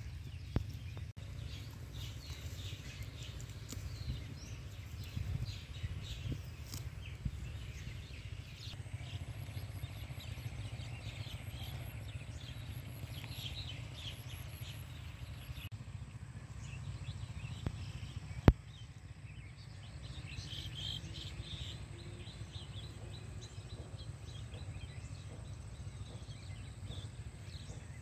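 Small birds chirping here and there over a steady low rumble. A single sharp click stands out about two-thirds of the way through.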